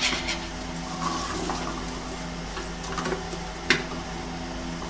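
Sliced onions sizzling gently in hot oil in a frying pan while a wooden spatula stirs them, with scattered clicks of the spatula against the pan and one sharp knock a little before four seconds in. A steady low hum runs underneath.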